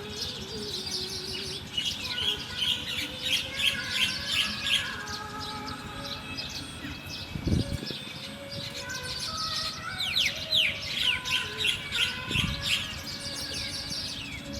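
Small birds chirping: two runs of quick, sharp chirps several times a second, with fainter held whistled notes between them. Two dull thumps cut in, one about halfway through and one near the end.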